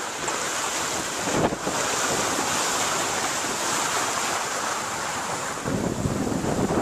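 Wind and waves rushing past a sailboat under sail in choppy water, with wind buffeting the microphone. The low wind rumble on the microphone grows heavier near the end.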